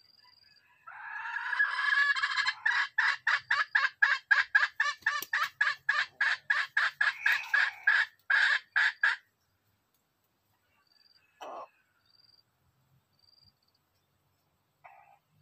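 A junglefowl calling in a long, loud run of rapid clucks, about four a second, for several seconds. A single short knock comes a couple of seconds after the calling stops, over faint insect trilling.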